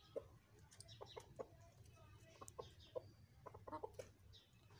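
Chickens clucking faintly: short, scattered soft clucks, with a quick run of several clucks near the end.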